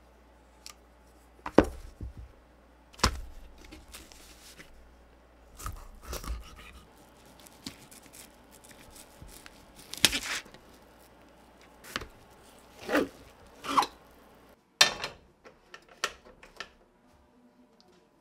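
Kitchen knife work: a knife drawn against a handheld sharpener and slicing fish fillets on a plastic cutting board, heard as a string of short scrapes and knocks, unevenly spaced a second or two apart.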